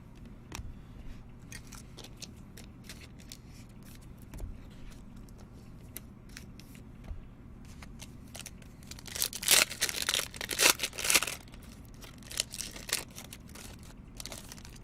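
Baseball card pack wrapper being torn open with crinkling, loudest in a cluster of rips about nine to eleven seconds in. Light clicks and rustles of cards being handled come before and after.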